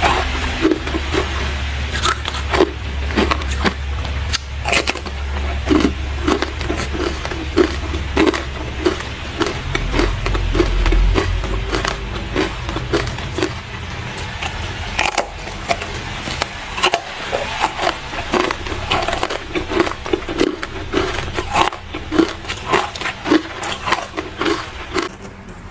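Ice being chewed close to the microphone: dense, crisp crunching and cracking in a steady chewing rhythm of about two bites a second.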